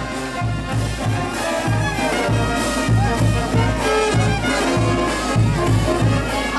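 Latin band music with brass and a steady, driving bass beat, about two to three beats a second.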